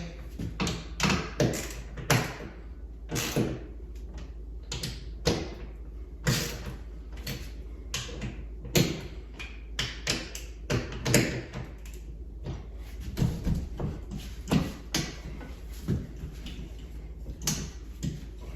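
Irregular knocks, clicks and clunks as the metal parts of a TV wall mount are handled and adjusted, over a steady low hum.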